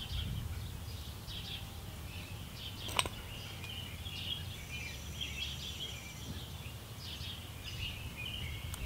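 Outdoor garden ambience: birds chirping over a low steady rumble, with a single sharp click about three seconds in.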